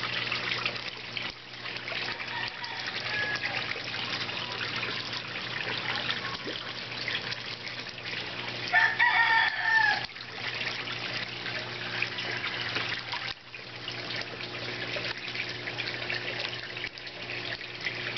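Water trickling and splashing in a tub of fish within a bubbling pond, over a low steady hum. About nine seconds in, a single loud pitched call lasting about a second stands out as the loudest sound.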